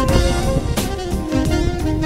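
Background music: an upbeat jazz-style track with saxophone-like melody over drums and steady beat.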